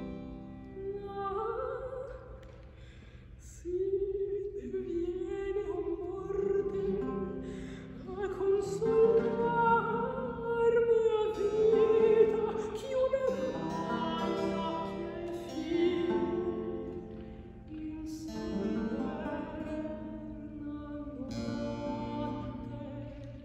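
Mezzo-soprano singing Baroque Italian music in a full operatic voice with vibrato, accompanied by harpsichord and theorbo; she is loudest in the middle of the phrase.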